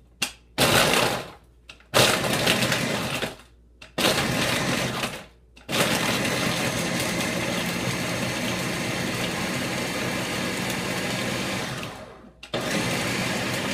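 Countertop blender pulsed three times in short bursts, then run continuously, crushing ice cubes with grapes, blueberries, avocado and coconut. It stops briefly near the end and starts again.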